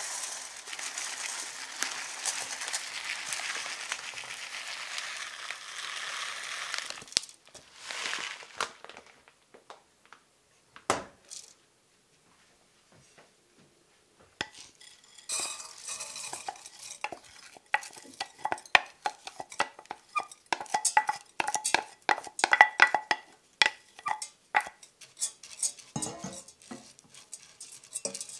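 Dry rice grains pouring from a bag onto a steel scale pan, a steady hiss for about seven seconds, then a short second pour and a single knock. After a short pause, rice rattles and clicks in a stainless-steel pot as it is stirred with a wooden spatula, and the pot rings with each stroke.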